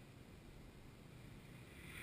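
Near silence: a faint, steady background hiss with a low rumble.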